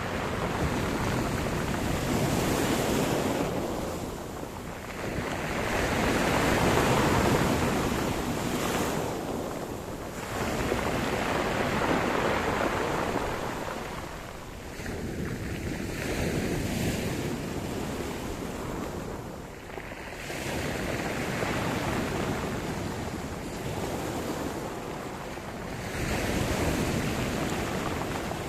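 Sea surf: waves breaking and washing on the shore in repeated swells, each rise and fall lasting a few seconds, with some wind on the microphone.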